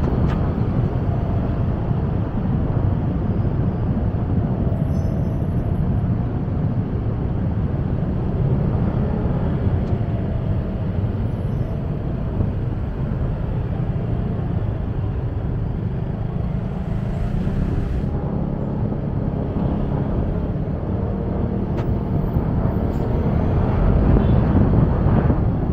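A motorcycle riding through dense city traffic: the small engine runs with a pitch that wavers up and down as it speeds up and slows, over a steady low rumble of road and surrounding traffic noise. It grows somewhat louder near the end.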